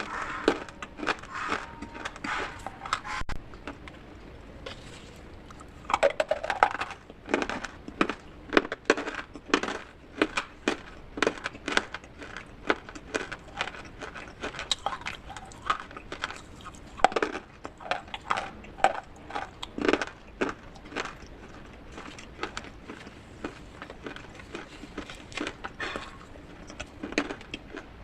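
Pieces of clay pot being crushed and crunched, a run of irregular sharp crunches and crackles with short pauses between them.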